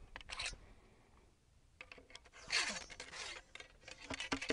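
A musket's ramrod scraping as it is worked in and out of the barrel while loading a muzzle-loading flintlock musket, to ram powder and ball home. The scraping comes in three spells: a short one about half a second in, then two longer ones.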